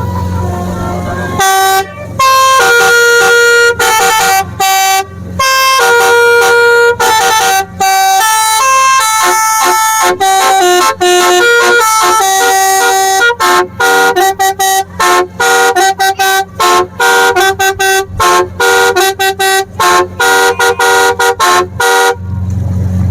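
A Basuri telolet horn, a multi-tone musical horn, playing a loud tune of stepping notes. The notes are held at first, then come as short, choppy blasts before the tune stops about 22 seconds in. A low motor hum sounds before and after it.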